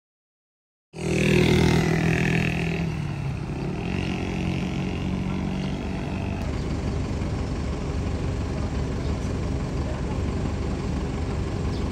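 Vehicle engine noise starting abruptly about a second in: a loud engine drone that fades over the next few seconds, then a steady low rumble.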